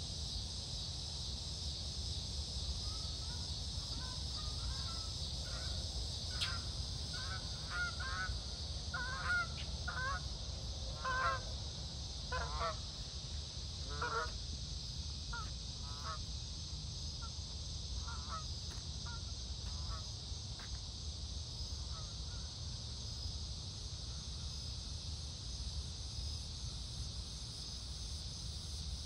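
Birds calling in a loose series of short, repeated calls. The calls start about three seconds in, are densest in the middle and thin out past twenty seconds. Under them runs a steady high insect chorus and a low rumble.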